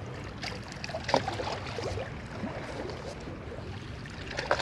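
Small waves of calm sea water lapping at the shore, over a low steady rumble, with a few faint clicks and knocks scattered through.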